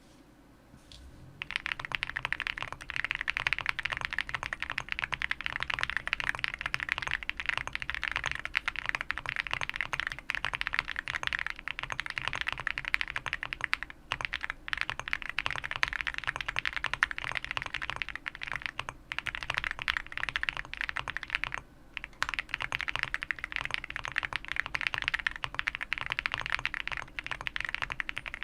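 Fast, continuous typing on a Mr. Suit custom mechanical keyboard with lubed and filmed Zaku switches, a POM plate, PE foam and a taped spacebar. Dense keystroke clicks start about a second and a half in, with a couple of brief pauses partway through.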